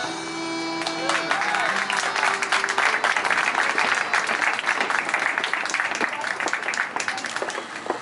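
Irish dance music ends on a held note, and about a second in an audience breaks into steady applause that continues.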